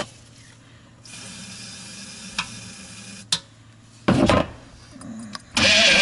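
A steady faint hiss with two clicks, then a brief loud noise about four seconds in; guitar music starts just before the end.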